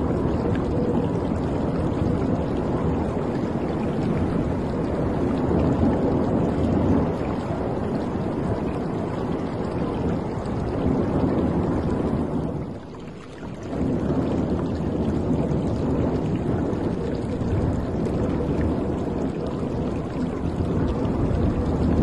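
Water rushing and splashing against the hull of a boat, a steady noise that drops away briefly a little past halfway through.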